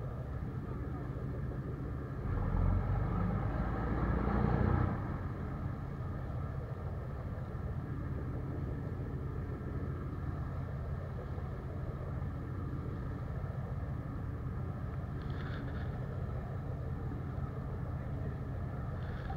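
Boat engine running steadily, louder for a few seconds about two seconds in.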